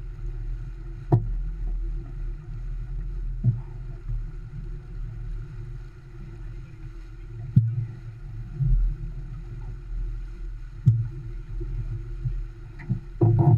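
Steady low rumble of wind and water rushing past the hull of an Olson 25 sailboat sailing heeled, with four sharp knocks spread through it.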